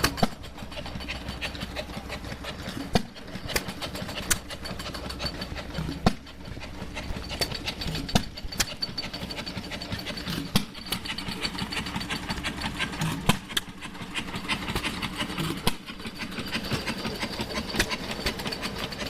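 Hit-and-miss stationary engines running: a fast steady clatter with sharp firing pops at irregular gaps of one to two seconds.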